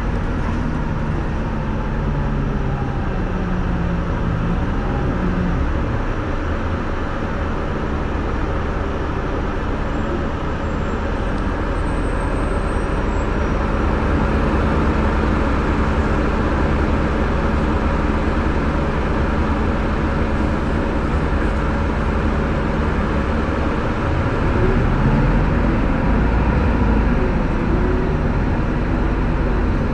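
Inside a moving city bus: engine running under a steady rumble of road noise. The engine note rises and falls as the bus changes speed, in the first few seconds and again near the end.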